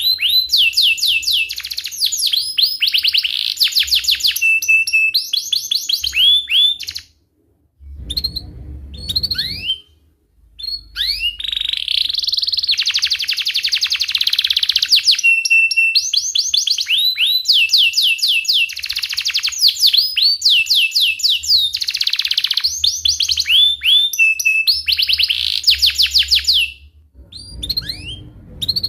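Domestic canary singing a long, loud song of fast rolling trills made of rapidly repeated sweeping notes, mixed with chirps. It breaks off briefly about seven seconds in and again near ten seconds, then continues.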